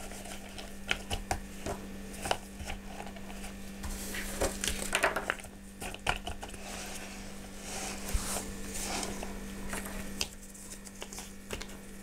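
Pieces of orchid bark mixed with sphagnum moss being handled and pressed into a pot around the roots: scattered light clicks, taps and rustles of the dry chips.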